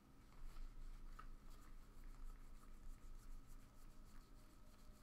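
Faint rustling and soft scraping of trading cards being handled, slid and flipped against one another, over a steady faint hum.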